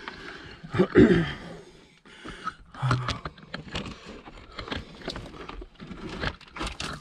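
Loose brick and stone rubble knocking and scraping under someone moving across it, in scattered short knocks, with a short grunt about a second in.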